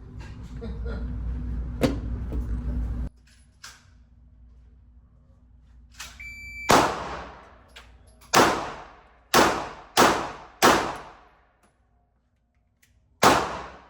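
Six handgun shots, each a sharp crack with a short ringing tail: five in quick succession, then a sixth after a pause of a couple of seconds. A short high beep sounds just before the first shot, and a low rumble cuts off suddenly about three seconds in.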